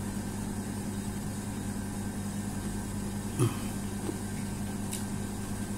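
Steady low electrical hum, with two brief clicks of a metal spoon during eating, one a little past halfway and one near the end.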